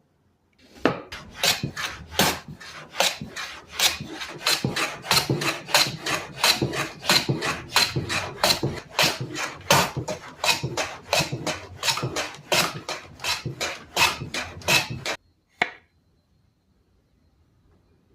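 A hand tool cutting wood in quick, evenly repeated strokes, about two to three a second, stopping about fifteen seconds in, followed by one last stroke.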